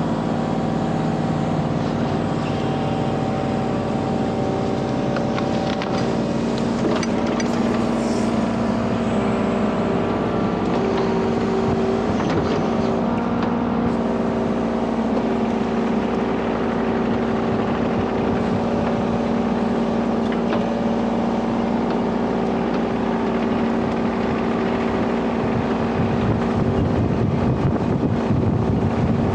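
Kubota U35-4 mini excavator's diesel engine running under hydraulic load, driving an Express Steel 36-inch brush cutter whose spinning blade gives a steady hum with held tones. Scattered sharp clicks and crackles come from reeds and grass being cut, thickest a few seconds in.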